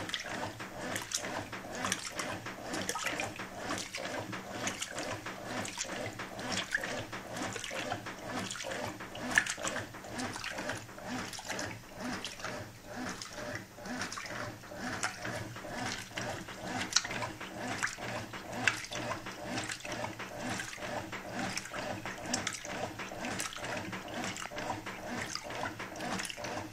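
Brastemp Clean 6 kg top-loading washing machine agitating a double comforter on the normal cycle. The motor hums steadily while the agitator swishes back and forth, the water and wet bedding sloshing in a quick, even rhythm.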